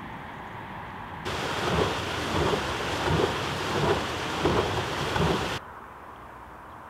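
Water gushing out of a large outfall pipe into a river: a loud, steady rushing that swells in surges about every two-thirds of a second. It starts abruptly a little over a second in and stops abruptly near the end.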